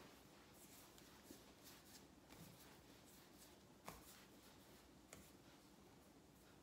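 Faint rubbing of palms rolling soft dough into a thin rope against a granite countertop, with a couple of soft taps, the clearest about four seconds in.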